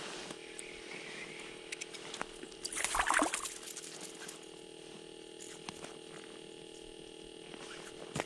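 A short wet swish about three seconds in as a yellow perch is pulled up out of an ice-fishing hole, then a light thud near the end as the tossed fish lands on the ice.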